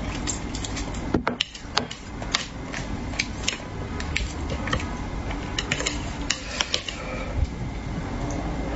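Close-miked eating of spicy braised fish: slurping and chewing with many irregular sharp clicks of chopsticks and mouth, over a steady low hum.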